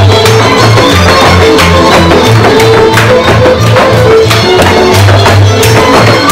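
Lively folk dance music with a pulsing bass line on the beat and a melody line above. Sharp knocks run through it from dancers' shoes striking the wooden floor.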